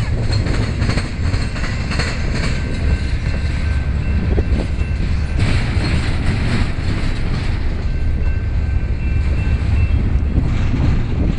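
Double-stack intermodal container train rolling past at close range: a steady loud rumble of the loaded well cars, with irregular clicks of wheels over rail joints. A faint, high, steady whine runs under it through most of the pass.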